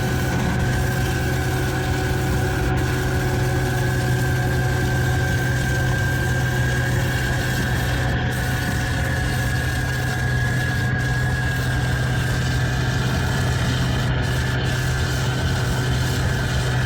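Farm vehicle engine running at a steady speed, with a constant low drone and a steady high whine over it.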